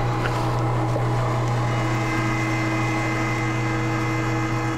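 Weston electric meat grinder running steadily under load, its motor humming with a strong low tone, as meat is forced through the fine 4 mm grinding plate.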